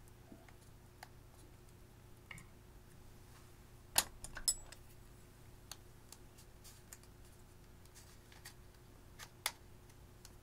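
Small tools scraping and picking pressed eyeshadow out of a plastic compact: faint scratchy scrapes and light ticks, with two sharp clicks about four seconds in and another near the end.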